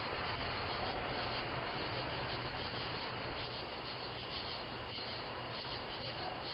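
Steady background noise through a doorbell camera's microphone: an even hiss with a faint low hum and no distinct events.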